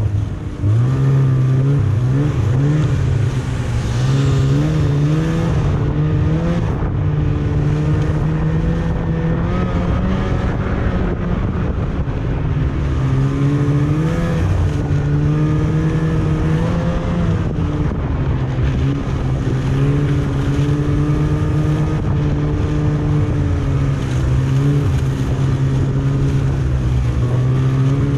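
Snowmobile engine running under way, its pitch rising and falling with the throttle, with a short drop in level about half a second in.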